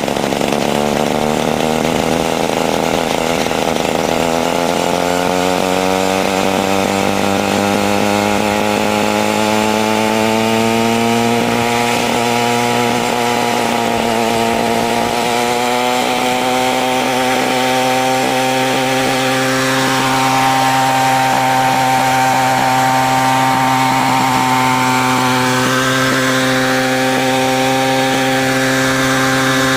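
The 20 cc Hirobo two-stroke petrol engine of a radio-controlled Bell 47G helicopter running with the main rotor turning. Its pitch climbs over the first several seconds as it spools up, then holds steady with a few small dips and recoveries.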